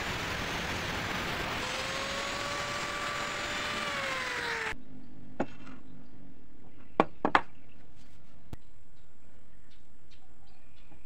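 Angle grinder cutting through a metal tube: a loud grinding whine that sags in pitch as the disc bites, cut off abruptly about five seconds in. After it, a few sharp clicks and knocks as the metal pieces are handled over a wooden table.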